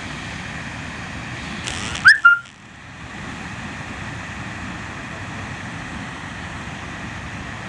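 Steady rush of the Nar-Madi waterfall. About two seconds in, a short, very loud whistle rises in pitch and then holds one note briefly.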